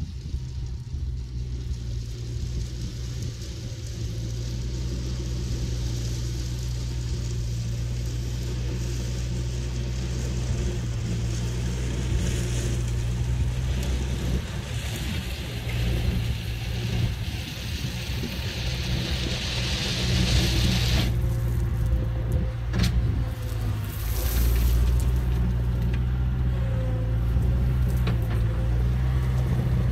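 Bobcat skid-steer loader's engine running steadily as the machine drives along, growing louder as it approaches.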